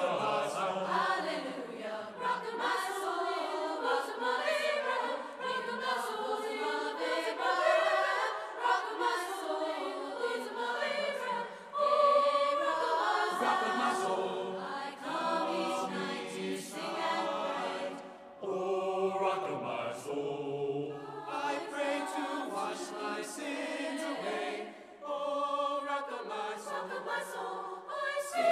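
Choir singing a traditional spiritual, many voices in harmony, the sound thinning briefly a few times.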